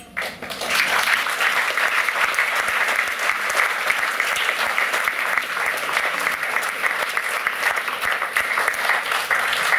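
Audience applauding: dense, steady clapping that starts abruptly just after the line ends.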